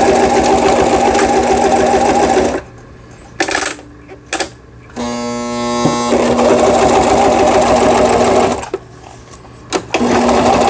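Toyota RS2000 household sewing machine stitching through fabric at speed, freshly repaired. It stops about two and a half seconds in, gives a few short bursts, runs steadily again from about six seconds, and pauses briefly once more near the end.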